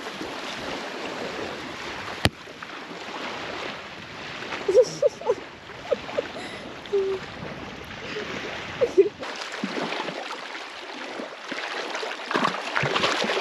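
Shoreline water noise: small waves washing and splashing in the shallows, with a sharp click about two seconds in and a few short, high squeaky tones in the middle.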